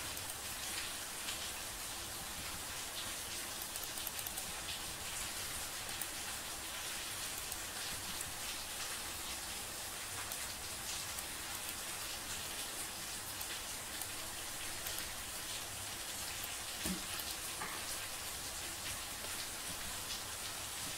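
Low, steady background hiss with many tiny crackles throughout, and one brief small knock late on.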